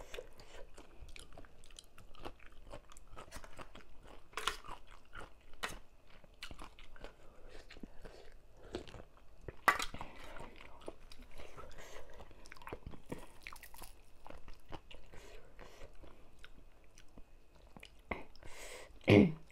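Close-miked eating: wet chewing and crunching of papaya salad with noodles and raw vegetables, full of small irregular clicks and mouth noises picked up by a lapel microphone. A short, louder sound comes just before the end.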